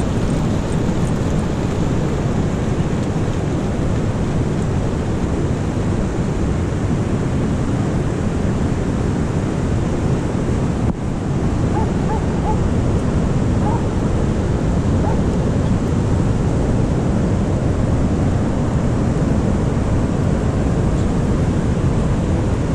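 Wind rumbling on the microphone over the steady wash of ocean surf, with a brief drop in level about eleven seconds in.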